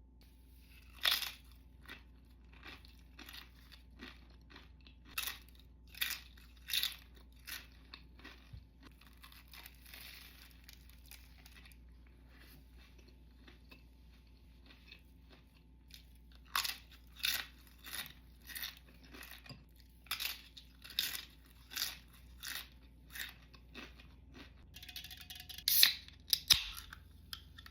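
A person eating close to the microphone: crunchy bites and chewing in irregular bursts, with a pause of a few seconds midway and a louder cluster of crunches near the end.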